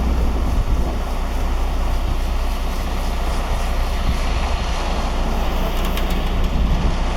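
Ready-mix concrete truck running steadily, a constant low rumble with a rushing noise over it, as it discharges the last of its load.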